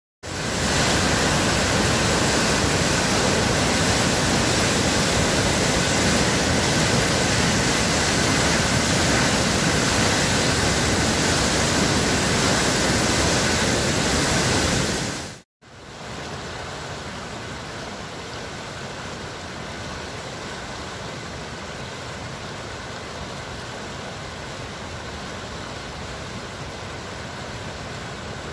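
Floodwater rushing and churning in a river in spate, a loud steady roar of white water. About halfway through it cuts abruptly to a quieter, steady rush of the swollen river.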